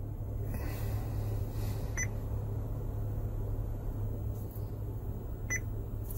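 Two short touchscreen key beeps from an Android car head unit as menu items are tapped, about three and a half seconds apart, over a steady low hum.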